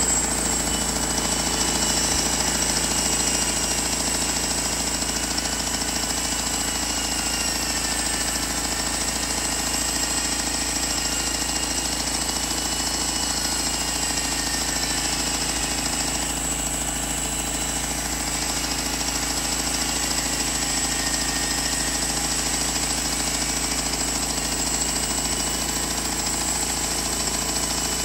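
Homemade sawmill's engine running steadily with a fast mechanical chatter, with a faint high whine over it.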